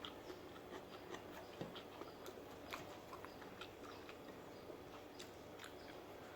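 A person chewing food close to the microphone, with many small irregular clicks and crunches.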